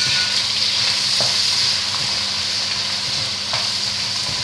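Pork ribs and sliced onions frying in oil in a kazan, a steady sizzle, stirred with a silicone spatula that scrapes faintly now and then.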